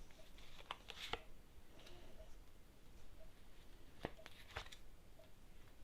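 Tarot cards being drawn and laid out: a few soft card clicks about a second in, and two more around four seconds in.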